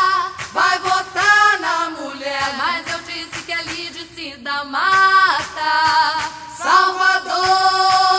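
Brazilian political campaign jingle: voices singing over backing music.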